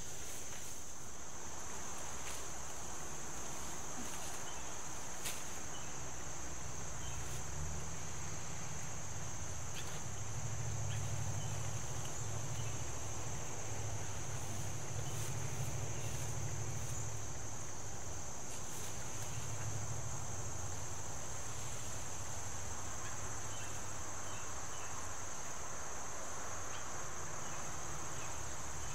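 Steady high-pitched chorus of insects in the grass, a continuous trill, over a low rumble that swells through the middle. Occasional light clicks and rustles from branches being handled.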